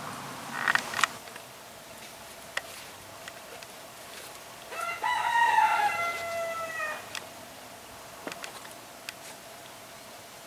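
A rooster crowing once, a pitched call of about two seconds that falls slightly at the end, starting about halfway through. Two short sharp sounds about a second in are as loud.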